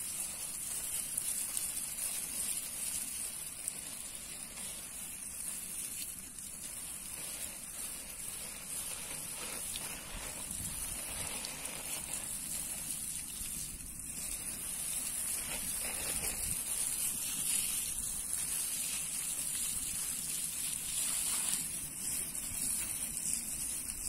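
A jet of water spraying onto a dense bed of mint plants, a steady rush and patter of water on leaves.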